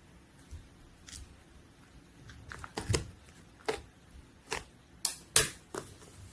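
Slime being squeezed and pressed by hand, giving irregular sharp pops and clicks of trapped air, about nine in all, the loudest just past five seconds in.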